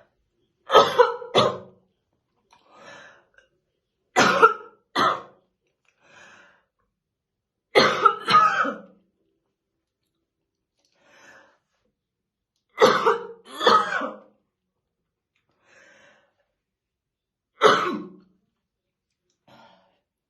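A woman's deep, chesty smoker's morning cough: five coughing bouts a few seconds apart, most of two or three coughs, with faint breaths in between.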